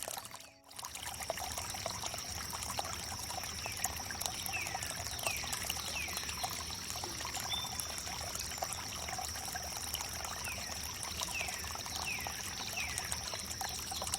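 Water trickling and pouring over wood, with a steady high-pitched whine throughout. A brief dropout comes about half a second in. From about four seconds in, an animal gives a string of short, downward-sweeping chirps, about eight of them.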